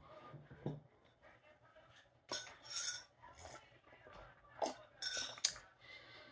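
A metal spoon clinking against a mug a handful of times as the mug is picked up and drunk from, in short sharp clinks.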